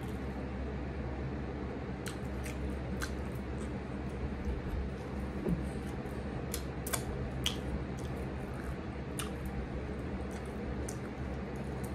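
Scattered small clicks and wet squishes of eating and handling food, including a lemon wedge squeezed over a shrimp taco, over a steady low hum.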